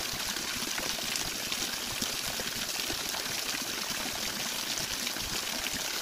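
Steady rushing of a waterfall and small cascades spilling over a stone ledge: a constant, even wash of falling water.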